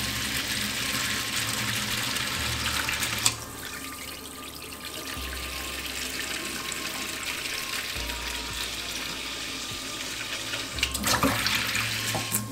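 Hot water running from a kitchen tap into a stainless steel sink, splashing as the bowl fills. The splashing turns quieter about three seconds in and louder again near the end.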